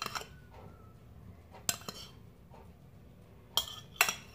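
Metal spoon clinking and scraping against a ceramic bowl as sauce is spooned out, a handful of separate sharp clinks spread a second or two apart.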